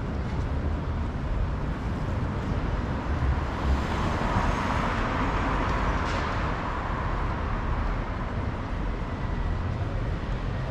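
City street traffic with a steady low rumble. One vehicle passes by, swelling in level about halfway through and then fading.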